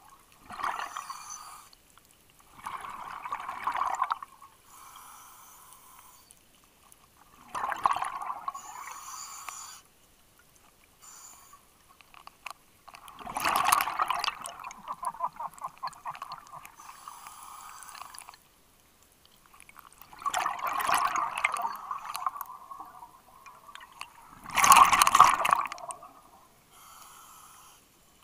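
Scuba diver breathing on a regulator underwater: loud gurgling rushes of exhaled bubbles every few seconds, with quieter stretches between breaths.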